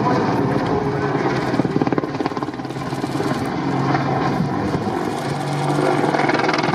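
AH-64 Apache attack helicopter flying overhead, its rotors chopping fast and evenly as it banks through turns. A steady low drone joins the chopping over the second half.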